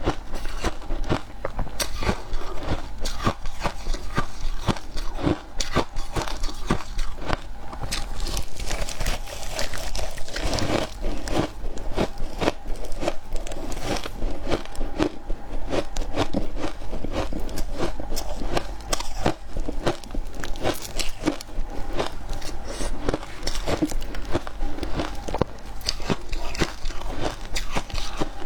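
Close-up crunching and chewing of shaved ice mixed with milk powder: many crisp, irregular crunches without a break.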